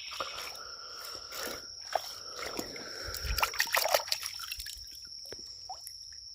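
Shallow creek water splashing and trickling, with scattered small clicks and knocks that are busiest about three to four seconds in and then die down.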